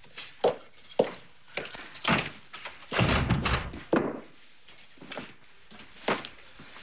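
Household handling sounds: a door opening, footsteps, and a coat and bag being handled and set down, heard as a string of sharp knocks and thuds with a longer rustle about three seconds in.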